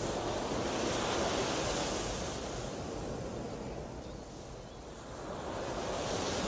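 Waves washing in: a rushing noise that swells about a second in, eases, and builds again near the end.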